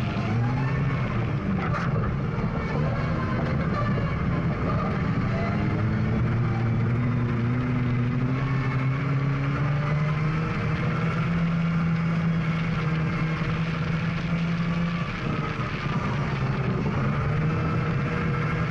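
GAZ Volga rally car's engine pulling hard on a gravel stage, its pitch climbing as it accelerates and then holding high. About fifteen seconds in the revs briefly drop, then pick up again, over a steady hiss of tyres on loose gravel.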